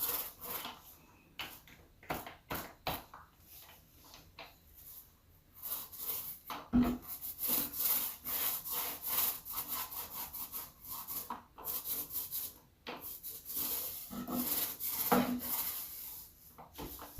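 Paint being spread onto the plywood of a cabinet box in repeated rubbing strokes, with a quieter pause a few seconds in before the strokes resume.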